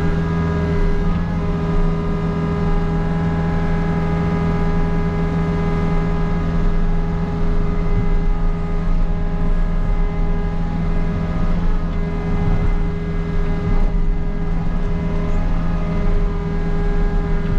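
Takeuchi TB260 mini excavator's diesel engine running steadily at working speed, a constant pitch with small swells in loudness.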